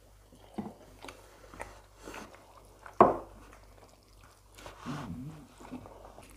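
Close-up mukbang eating sounds: chewing and mouth noises, and fingers working rice and stew on plates. A single loud sharp knock comes about three seconds in, and a brief hum follows a little later.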